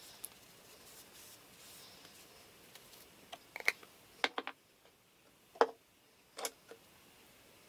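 Small plastic makeup containers and caps being handled and set down on a table: a few sharp clicks and taps in small clusters, starting about halfway through.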